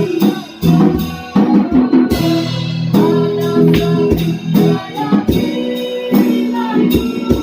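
Background pop song, an instrumental stretch of guitar over a drum kit.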